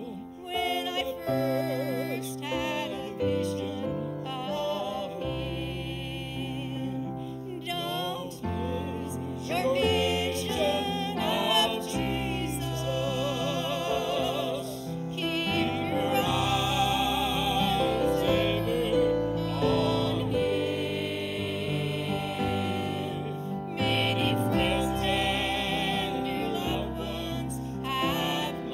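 Gospel song sung by an older woman with a wide vibrato, over steady instrumental accompaniment.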